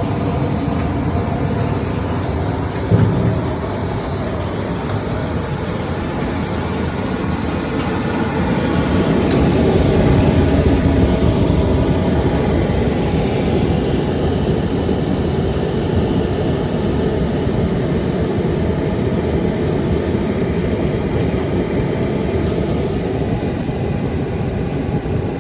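Pet food extrusion production line running: a steady industrial machine din of motors and blowers with a thin high whine over it. A single sharp knock comes about three seconds in, and the noise grows a little louder around ten seconds in.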